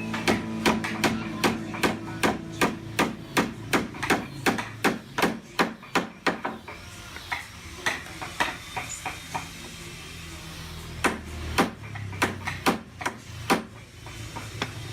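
Hammering in woodwork: quick, sharp blows about three a second, thinning out after about six seconds, then a pause and a few more blows.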